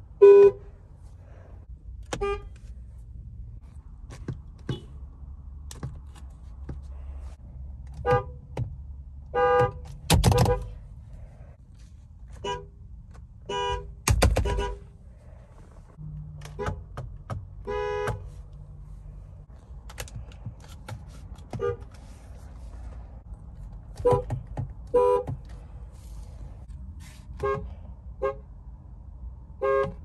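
Car horns of several cars, a Chevrolet's and then an Infiniti's among them, sounded in short honks, often in quick pairs. The two loudest, about ten and fourteen seconds in, are fuller blasts.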